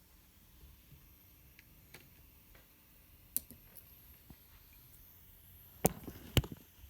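A few sharp clicks and knocks from handling small electronics and cables: one light click about a third of the way in, then two louder ones about half a second apart near the end.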